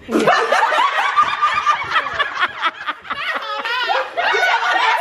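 A group of people laughing loudly, several high, wavering voices overlapping.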